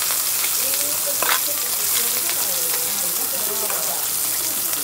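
Abalone in the shell, tiger prawns and snow peas sizzling steadily on a hot steel teppanyaki griddle. A few light clicks of the chef's metal spatulas against the plate come through, the clearest a little over a second in.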